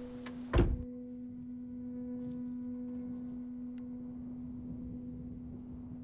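Trailer sound design: a steady low droning tone held throughout, with one deep hit about half a second in.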